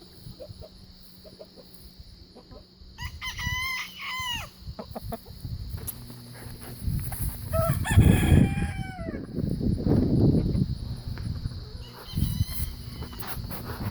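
Bantam rooster crowing, a call about three seconds in and another about eight seconds in, the second falling in pitch. A low rumbling noise runs alongside the second crow and is the loudest sound.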